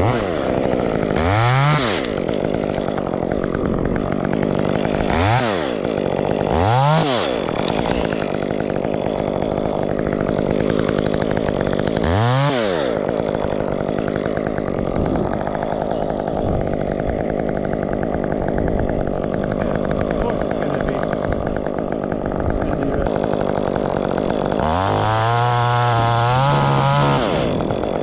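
Chainsaw blipped up to speed and back four times in quick revs, then held at high revs for about two seconds near the end, with a steady engine running beneath throughout.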